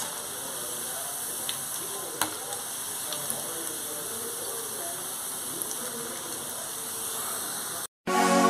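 Pakodas deep-frying in hot oil in a steel kadai: a steady sizzle, with a few light metal clicks as a slotted ladle stirs and lifts the fritters out. The sizzle cuts off near the end and electronic music starts.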